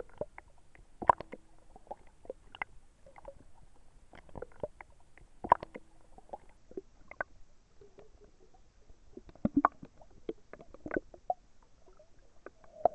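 Water sloshing and gurgling around a camera at the waterline, with irregular sharp pops and clicks as the housing dips in and out of the surface.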